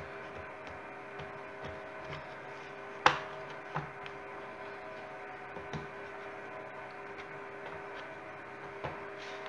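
Hands pressing and stretching yeast dough on a wooden board, with scattered light taps and one sharp knock on the wood about three seconds in, over a steady hum.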